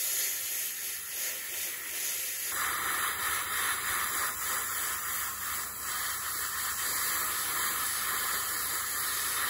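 Airbrush spraying paint: a steady hiss of air and atomised paint, growing stronger and brighter about two and a half seconds in.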